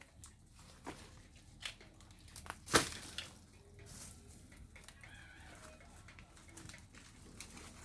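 Chickens clucking, with scattered sharp knocks and clicks; the loudest knock comes a little under three seconds in.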